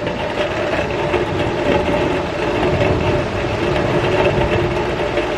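Heavy rain pouring down in a thunderstorm, a dense steady wash of noise with a low steady hum underneath.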